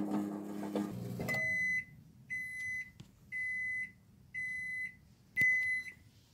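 Toshiba microwave oven running with something burning inside, its hum cutting off about a second in, followed by five end-of-cycle beeps about a second apart.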